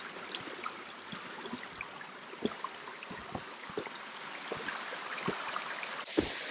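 A small forest creek running steadily, with scattered footsteps on a gravel trail. The water sound grows louder near the end.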